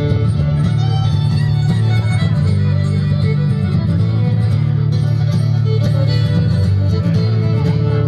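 Bluegrass string band playing a tune: two fiddles bowing the melody over strummed acoustic guitar and upright bass.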